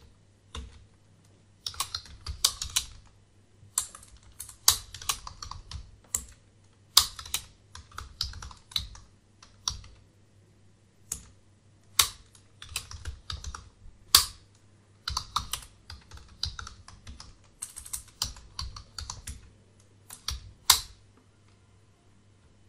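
Computer keyboard typing in short runs of keystrokes separated by pauses, with a few harder single strokes standing out. The typing stops about two seconds before the end.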